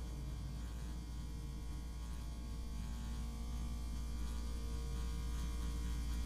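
Low, steady droning ambience with an electrical hum quality, strongest in the deep bass, swelling slightly louder near the end.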